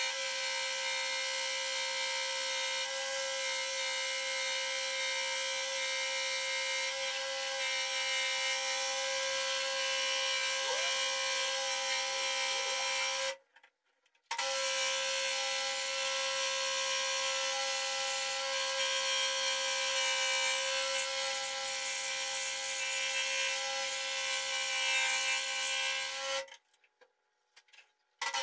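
Electric scroll saw running and cutting through a wooden board by hand feed: a steady whine over a hiss. It cuts out twice, briefly about halfway through and for a couple of seconds near the end.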